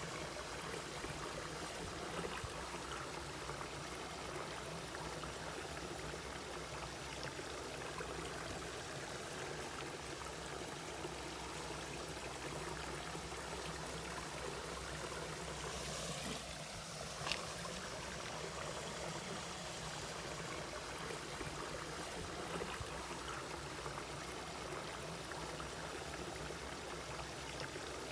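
Mountain valley stream flowing and trickling over rocks, a steady rush of water with one brief click about two thirds of the way through.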